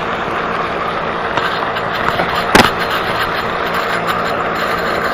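Spinning fishing reel being cranked to bring in a hooked fish, over the steady rush of a pond fountain; one sharp click about two and a half seconds in.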